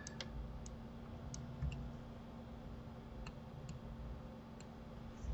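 About eight sharp, scattered clicks of a computer mouse and keyboard as a Blender model is worked on, over a low steady hum.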